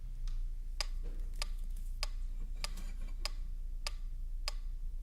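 Steady, even ticking, a little under two ticks a second, over a low steady hum.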